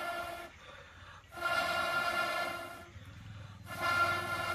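Breath blown through a metal blowpipe into a clay chulha to fan the kindling into flame, in long hissing blasts with a hollow whistling tone from the pipe. One blast ends about half a second in, a second runs from about 1.5 to 3 seconds in, and a third starts near the end.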